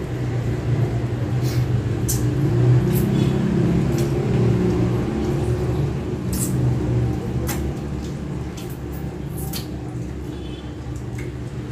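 People eating chicken feet by hand, with scattered small clicks and smacks of chewing and sucking. Under them runs a low hum that swells about three seconds in and then eases off, and it is the loudest thing heard.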